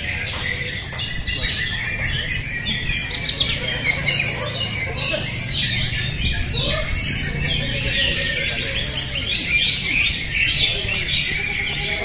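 A chorus of many caged greater green leafbirds (cucak hijau) singing at once: dense, overlapping chirps, whistles and rapid warbled phrases that never let up.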